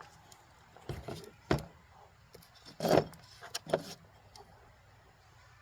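Rock specimens being handled: a handful of sharp knocks and clatters as hard pieces are picked up and set down, the loudest about three seconds in.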